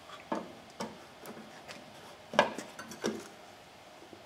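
A series of light knocks and clicks, about six of them, with the loudest about two and a half seconds in: hard objects being handled and set down.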